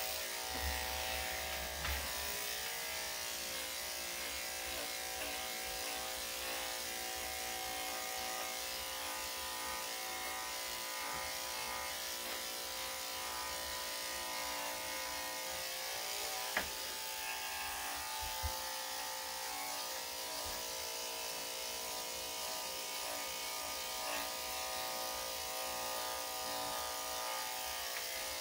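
Electric dog grooming clippers with a #5 blade running steadily while trimming a Yorkshire Terrier's body coat. A couple of faint taps can be heard in the middle.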